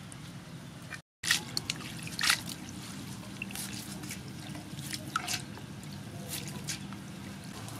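Water dripping and splashing as hands lift soaked glass noodles out of a metal bowl of water, with a few sharp splashes and drips, the loudest soon after the start.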